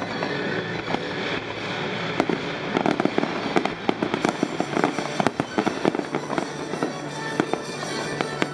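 Fireworks going off in a rapid, irregular string of sharp cracks and crackles, densest from about two to five seconds in, with music playing underneath.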